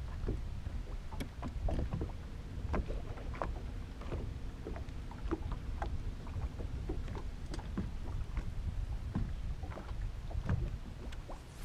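Small waves lapping and slapping irregularly against a bass boat's hull, with a low wind rumble on the microphone.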